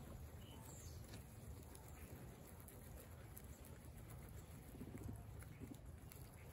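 Guinea pigs munching fresh grass: faint, quick, irregular crunching clicks over a low rumble.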